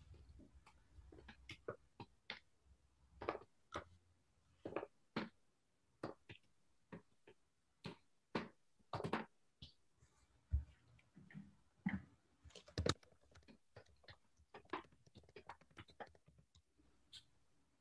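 Typing on a computer keyboard: faint, irregular key clicks in short runs with pauses between them.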